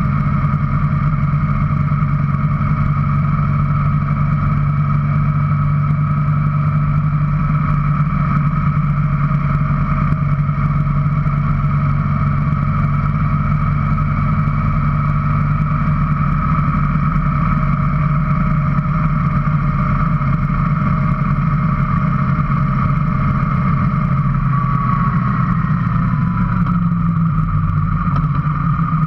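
Motorcycle engine running steadily at road cruising speed, heard from the rider's seat. Near the end the engine note shifts and falls as the bike eases off.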